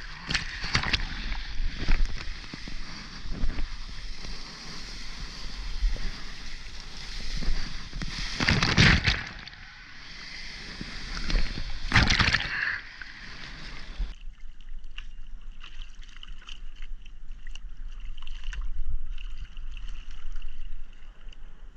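Whitewater rushing and splashing around a soft-top surfboard during a ride, heard right at the water's surface, with two louder splashes about 9 and 12 seconds in. About two-thirds of the way through the rushing stops, leaving quieter water lapping with small drips and splashes.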